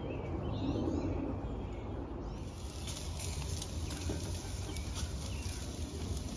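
Faint bird chirps over a low rumble, then from about two seconds in, steaks sizzling in a wire grill basket over wood embers, with many small crackles and pops.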